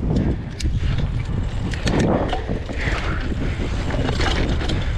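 Mountain bike riding down a dirt trail: wind buffeting the camera's microphone over a steady rumble of tyres on dirt, with scattered sharp clicks and rattles from the bike.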